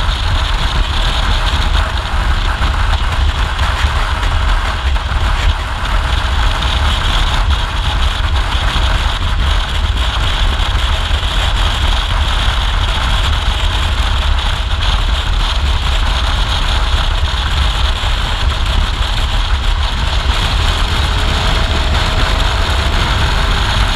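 Adventure motorcycle cruising steadily at road speed: continuous engine and tyre noise under heavy wind rumble on the handlebar-mounted microphone.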